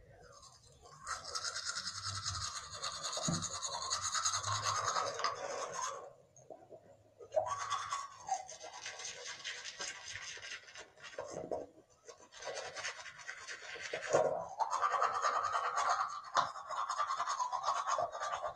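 Manual toothbrush scrubbing teeth in fast back-and-forth strokes, stopping briefly about six seconds in and again near eleven seconds.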